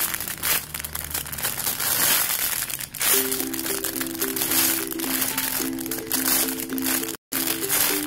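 Clear plastic packaging bag crinkling as the squishy toy inside it is handled and squeezed, over a simple background melody. The sound cuts out briefly near the end.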